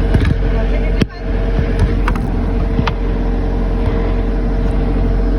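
Backhoe's diesel engine running steadily, with a steady whine over it and a few sharp clicks. There is a sharp knock about a second in, after which the sound briefly drops.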